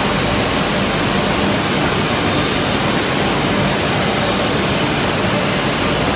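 Steady, loud rushing din of machinery running around a CNC mortise-and-tenon woodworking machine, even and unbroken, with no distinct strokes or tones.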